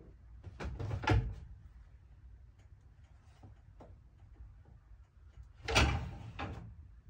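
A cat jumping from shelf to shelf on a wall-mounted cat ladder: two loud thumps with a rattle of the frame, about a second in and near the end, as it lands, with light knocks and scrapes between.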